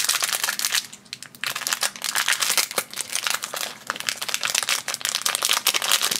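Black foil blind bag crinkling as it is handled and pulled open by hand: a dense, fine crackle with a short lull about a second in.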